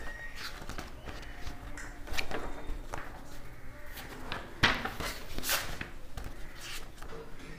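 Paper sheets rustling and being handled close to a clip-on microphone, in a few short scuffs, with one sharp click about four and a half seconds in.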